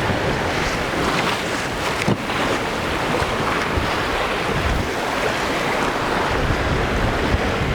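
Wind buffeting the microphone over the steady rush of sea water past a sailboat's hull under way.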